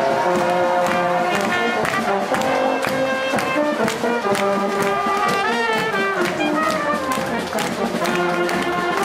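Brass band with trumpets, a tuba-type horn, saxophone and bass drum playing a tune to a steady drum beat.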